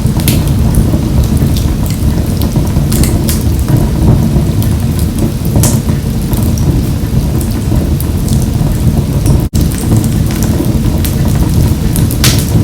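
Wood fire burning in a wood-burning stove: irregular sharp crackles and pops over a steady low rumble, with a split-second dropout about nine and a half seconds in.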